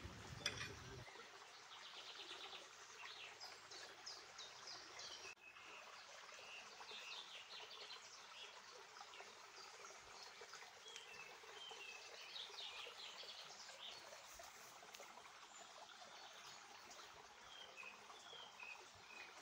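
Faint birdsong: many short chirps and calls from several birds over a light outdoor hiss.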